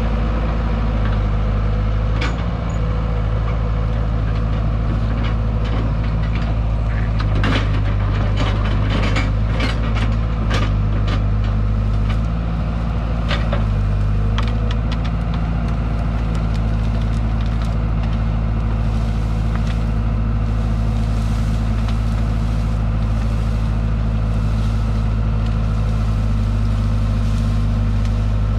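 Cat E120B excavator's engine running steadily under load while its bucket shoves and lifts a pile of brush, with branches cracking and snapping, thickest in the first half.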